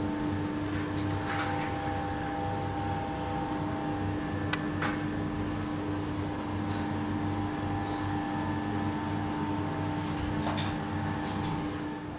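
Steady mechanical hum at a constant pitch, with a few light clicks and taps.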